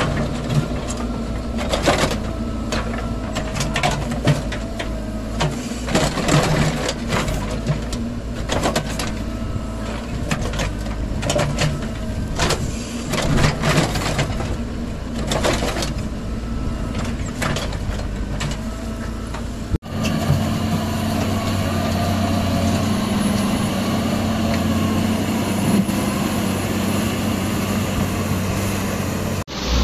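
Heavy earthmoving machinery and trucks working, with repeated clanks and knocks over engine noise. After a cut about two thirds of the way in, a diesel engine runs at a steady drone.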